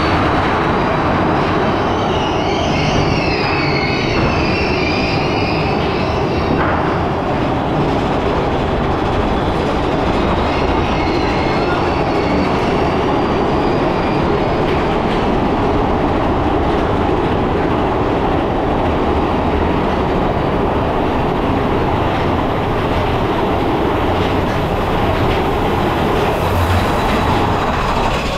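Mine-train roller coaster running along its track: wheels rumbling and clattering steadily, with high wheel squeal about two seconds in and again near the middle.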